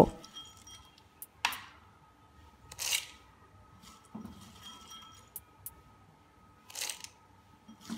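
A few faint, brief rattles, four or so spread out, of dry roasted peanuts shifting against a steel blender jar, over a faint steady hum.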